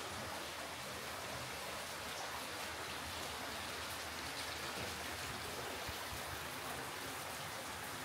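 Steady rush of flowing water, even and unbroken.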